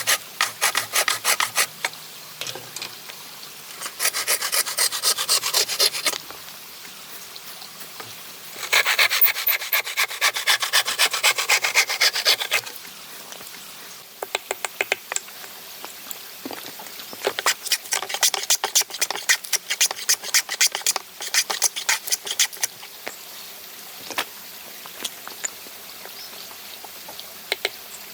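A hand tool working wood in quick, rasping back-and-forth strokes, coming in several bursts of a few seconds each, separated by pauses with scattered light ticks and knocks.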